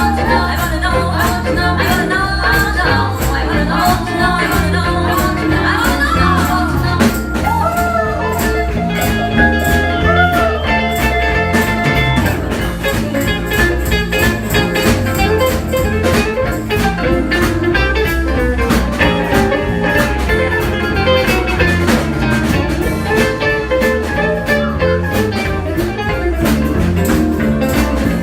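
Live band playing a blues-flavoured song: electric guitar over bass and a steady drum beat, with gliding, bending guitar or vocal lines.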